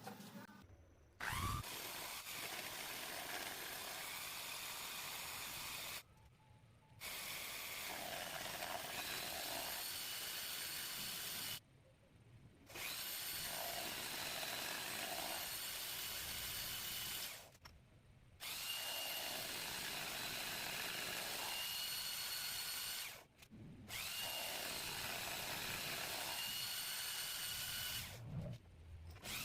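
Motor-driven machine tool running steadily with a high whine, in stretches of about five seconds broken by brief sharp dips.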